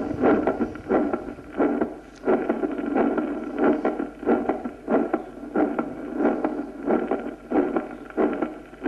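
Recorded heart sounds heard through a stethoscope, beating regularly at about three beats every two seconds. Each beat carries an added third heart sound after the two normal sounds, a physiological third sound as heard in a healthy young person.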